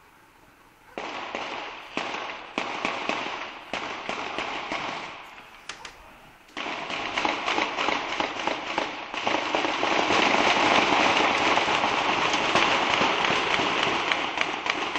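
Dense run of rapid sharp pops and bangs, starting about a second in, thinning out around five seconds, then coming back louder and unbroken from about six and a half seconds.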